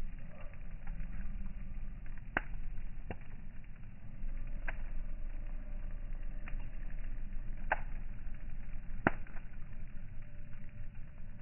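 Wood campfire crackling: a steady low rumble of burning with about half a dozen sharp, irregular pops.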